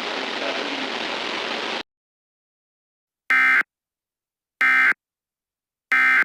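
A steady static hiss cuts off about two seconds in. After a pause come three short, identical buzzy data bursts a little over a second apart: the Emergency Alert System's end-of-message (EOM) SAME tones that close an EAS alert.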